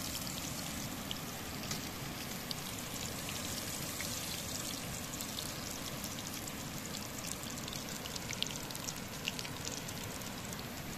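Chicken frying in hot oil in a kadai: a steady sizzle with many small crackles and pops scattered through it.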